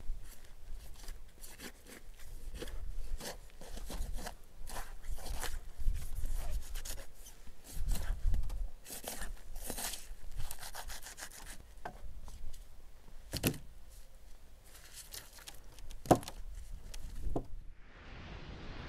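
Knife cutting into a raw whole lamb carcass on a wooden table: repeated short scraping and rubbing strokes, with a few sharper knocks. Near the end a steady hiss takes over.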